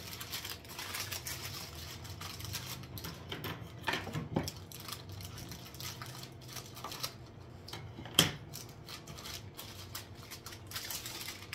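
Rapid scratchy rustling and small clicks of hands and utensils working at a kitchen counter, with sharper knocks about four seconds in and again about eight seconds in.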